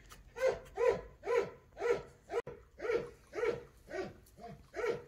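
A dog barking steadily, about two barks a second.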